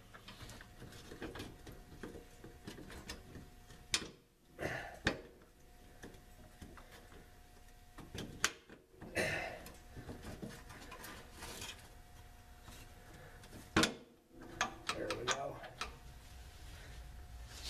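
Scattered metallic clicks, scrapes and knocks from a carriage bolt and flat washer being worked into an air helper spring's steel bracket by hand, with sharper clinks about four, eight and a half and fourteen seconds in.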